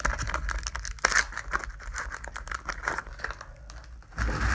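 Crinkly foil wrapper of a Pokémon trading card booster pack being handled and torn open, with crackling rustles and louder bursts about a second in and near the end.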